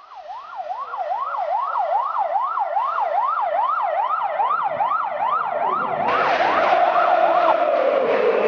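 Police siren wailing in a fast rising-and-falling yelp, about two and a half sweeps a second. About six seconds in, a crowd of football supporters starts chanting loudly and the siren fades under it.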